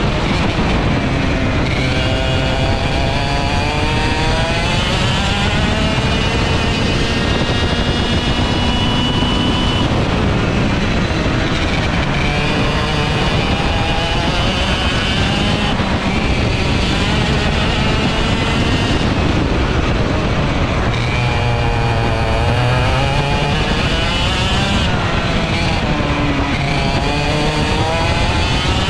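ROK GP 125cc two-stroke TaG kart engine at racing speed, heard from on board, its pitch climbing for several seconds and then dropping away, over and over through the lap.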